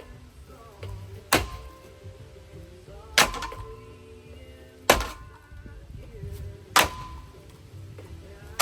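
Heavy blows struck on a ceiling fan with a bat, one about every two seconds, five in all, each with a short metallic ring.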